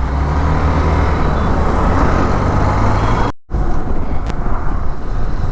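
Hero Xpulse motorcycle being ridden on the road: a steady low engine rumble mixed with wind and road noise. The sound drops out briefly about three and a half seconds in, then resumes as mostly wind and road noise.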